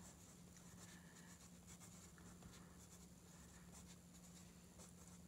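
Faint scratching of a pencil writing words by hand on sketchbook paper, over a faint steady low hum.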